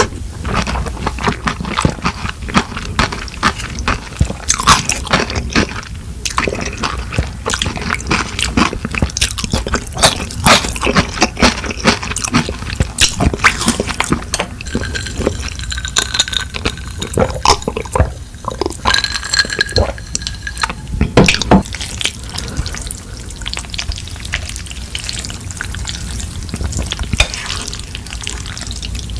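Close-miked eating sounds: wet, squishy chewing with many small irregular clicks of mouth and food.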